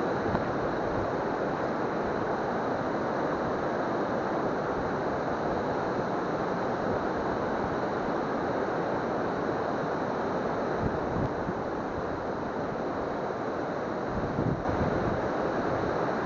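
Waterfall's steady rush of falling water, with a few low wind buffets on the microphone near the end.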